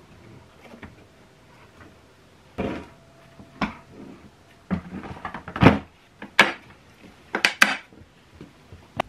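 Plastic knocks and clicks as the motor head of a Kärcher WD3 wet-and-dry vacuum is set onto its plastic container and its latches are snapped shut. About a dozen irregular knocks, the loudest about halfway through.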